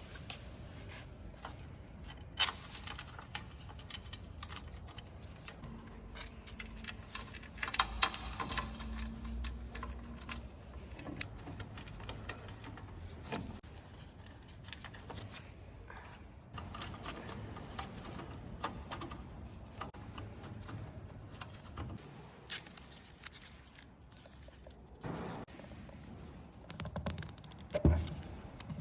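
Intermittent light clicks, taps and clinks of hand tools and parts being handled, with a brief run of rapid clicking near the end.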